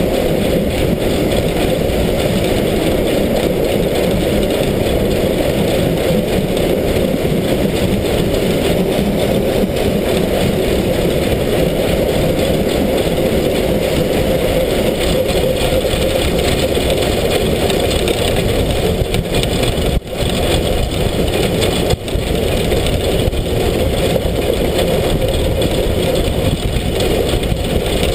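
Steam locomotive SZ 33 037, a 2-10-0, running at speed: a loud, steady rumble of the running gear and train noise picked up right against the locomotive's side. The level dips briefly twice about two-thirds of the way through.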